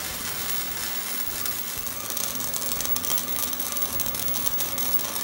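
Electric arc welding on a steel vise: the arc's continuous crackling sizzle, growing more ragged and spattery from about two seconds in.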